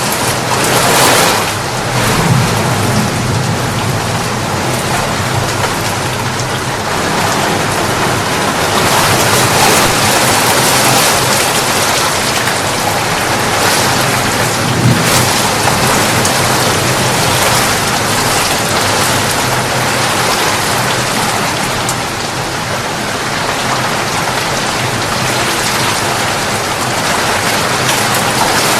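Steady heavy rain falling, an even hiss, swelled now and then by a low rumble, once about a second in and again around the middle.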